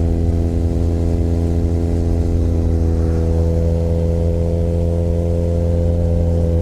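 Benelli Leoncino 500 Trail's 500 cc parallel-twin engine running at steady revs while the motorcycle cruises, pitch holding nearly constant.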